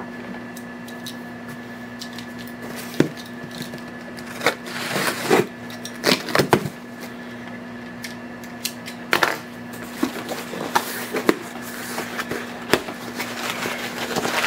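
Cardboard shipping box being handled and opened on a wooden workbench: scattered knocks and scrapes as it is turned over, then the flaps rustling as they are pulled open near the end. A steady low hum runs underneath.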